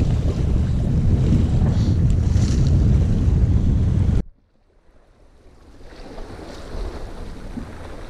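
Heavy wind rumble on the microphone over sea surf washing against the rocks. About four seconds in it cuts off suddenly to almost silence, then a fainter hiss of wind and sea slowly builds back.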